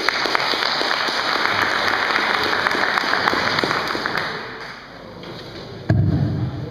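Audience applauding in a hall, a dense patter of clapping that fades out after about four and a half seconds. A sudden low bump and rumble follows near the end.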